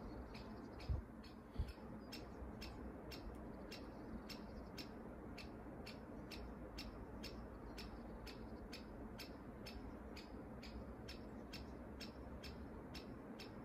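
Steady, even ticking, about two ticks a second, like a clock's, with two brief low thumps about a second in.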